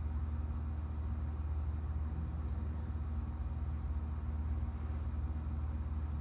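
A steady low hum with a faint hiss coming and going about every four and a half seconds, like a sleeper's slow breathing. There is no loud snore.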